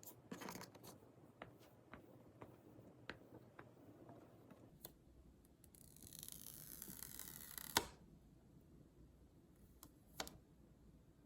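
Quiet handling of the iPad and its accessories: light clicks and taps, then a hissing rasp of about two seconds that ends in a sharp snap, and another click near the end.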